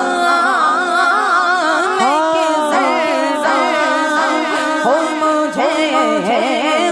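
A male voice sings a naat in a long melismatic passage, its pitch swooping and gliding through held vowels without clear words.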